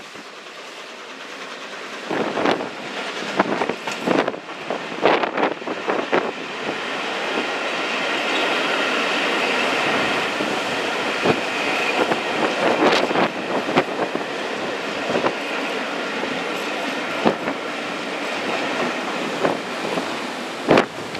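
Pullman coaches running past on jointed track, their wheels clattering in an uneven run of clicks and knocks, with a steady rushing sound in the middle as the rake goes by.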